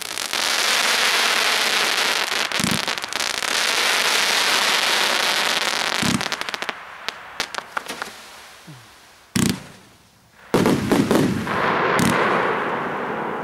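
Gaoo Christopher 35-shot fireworks battery firing: thumps of shots leaving the tubes, long stretches of dense crackling from the bursting effects, and a few sharp bangs, with a lull and a second crackling volley about two-thirds of the way in.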